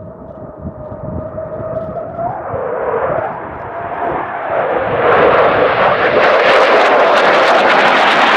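F-15C Eagle fighter jet, with twin Pratt & Whitney F100 turbofans, flying past at low level. Its engine whine grows louder as it approaches, then from about five seconds in turns into a loud jet roar with crackle as it passes close.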